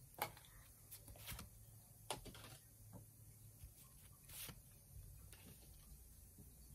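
Near silence broken by a handful of faint, short clicks and rustles: Pokémon trading cards being slid one at a time from the front of a hand-held stack to the back.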